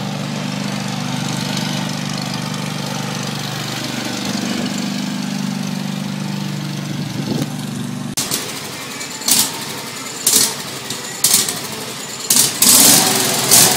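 Westwood T1400 ride-on lawn mower engine running steadily under way, an engine that after repair only runs with the choke on. About eight seconds in it cuts off abruptly, giving way to a series of sharp knocks roughly once a second.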